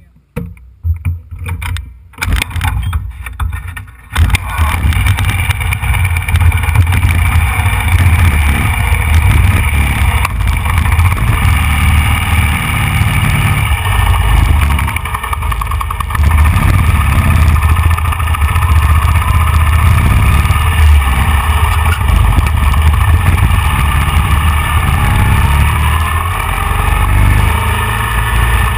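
1973 BMW R75/5 motorcycle's air-cooled boxer twin engine catching about four seconds in, then running steadily as the sidecar rig rides along.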